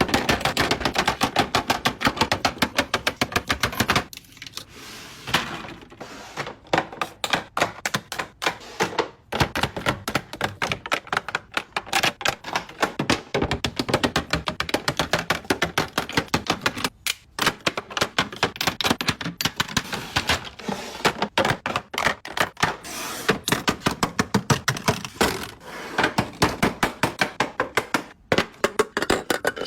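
Makeup cases and packaging tapped and clicked in quick runs of sharp, crisp taps, many a second, with a few brief pauses.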